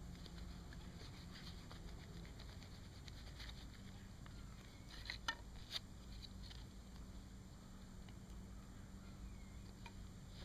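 Hand drill being worked: a mullein-stalk spindle spun between the palms in a wooden hearth board, giving faint scratchy rubbing with a couple of sharper clicks a little past the middle.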